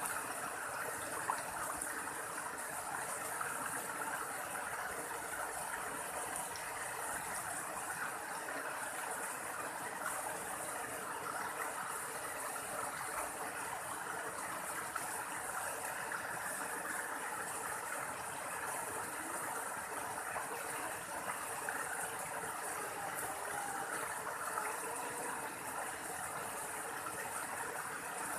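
Waterfall with water rushing steadily, an even unbroken hiss.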